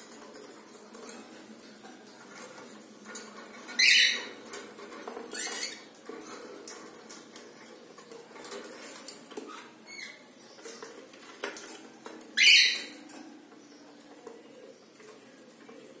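Cockatiels at a wooden nest box: two short, loud, high-pitched calls, about four seconds in and again about twelve seconds in, with a few fainter chirps between, over small scratches and taps of claws on wood and wire mesh.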